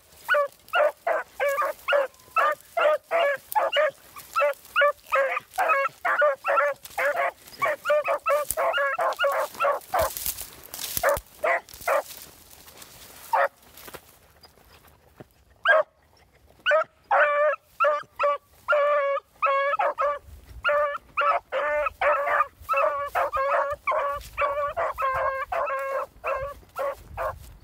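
Beagle puppies giving tongue on a rabbit's scent: rapid, short, high yelping bays, about three or four a second. Around the middle the baying breaks off for a few seconds, with only a couple of single yelps, then picks up again just as fast.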